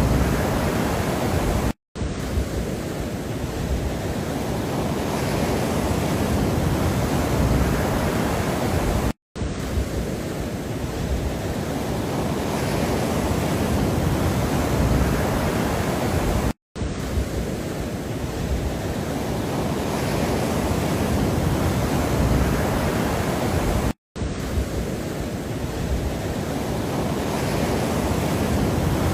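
Steady rushing noise, strongest in the low end, from a looped relaxation sound track; it drops out to silence for a moment four times, about every seven seconds, where the loop restarts.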